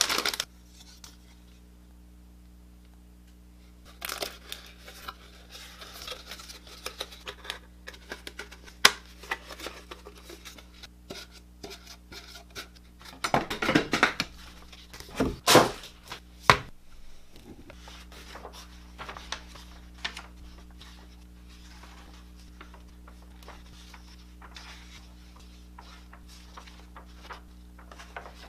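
Thin plastic bags crinkling and tearing as plastic model-kit runners are unbagged and handled. It starts a few seconds in, is loudest in a cluster of rustles and knocks about halfway through, and gives way to lighter paper rustling as instruction-manual pages are turned near the end.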